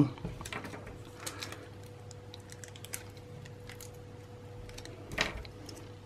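Faint handling sounds of double-sided tape squares being peeled and pressed onto small PLA plastic clips: light scattered clicks and rustles, with one louder tap about five seconds in, over a faint steady hum.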